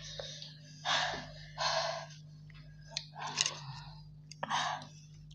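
A person gasping and panting with hissing breaths at the burn of extremely spicy (3x) ramen noodles: several short breathy gusts with pauses between them, a few small clicks, over a steady low hum.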